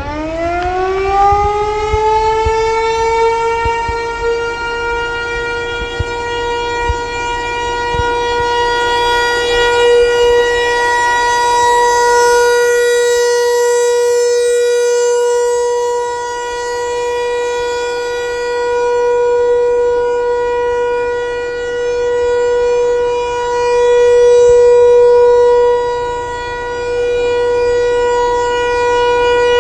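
American Signal T-128 outdoor warning siren sounding its weekly test: it winds up, rising in pitch over the first few seconds, then holds one steady tone, swelling and fading in loudness.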